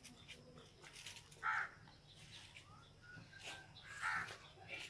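A crow cawing: two loud, short caws about a second and a half in and again near the end, with fainter calls between them.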